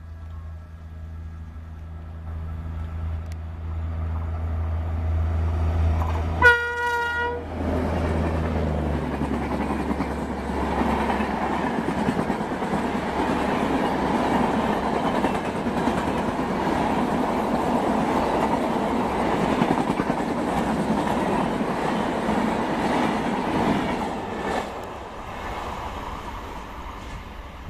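WAP-7 electric locomotive approaching at speed with a steady low hum, sounding one short horn blast about six and a half seconds in. Then the train's LHB coaches rush past with a loud, steady rolling rumble, which fades over the last few seconds as the train recedes.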